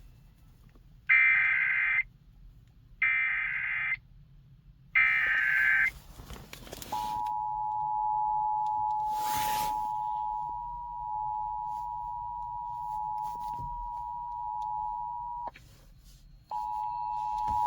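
Emergency Alert System test signalling. Three short bursts of SAME header data, then the two-tone EAS attention signal (853 and 960 Hz together) holding steady for about eight seconds and stopping. The attention tone starts again near the end.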